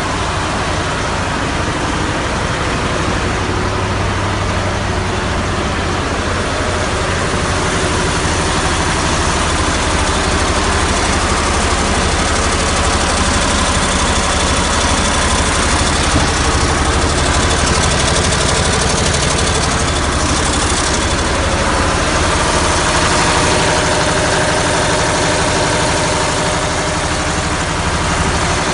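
Air-cooled KHD Deutz V8 diesel of a MAN KAT1 military truck running steadily.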